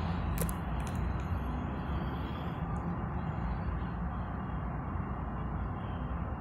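Steady low rumble of idling engines and road traffic heard from inside a car, with a few light clicks in the first second.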